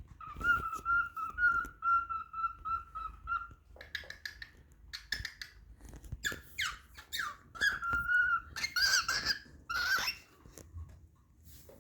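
Cockatiel singing: a held, wavering whistle for about three and a half seconds, then a run of varied whistled notes, several sliding downward, ending in two harsher, raspier calls.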